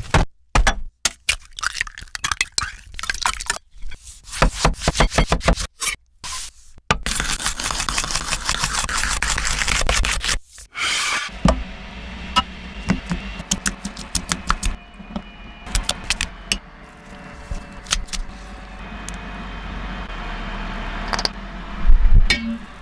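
Close-miked sandwich-making sounds in short cut-together takes: utensils and food scraping and crackling, with many clicks and taps, a denser crackling stretch in the middle, and a loud thump near the end.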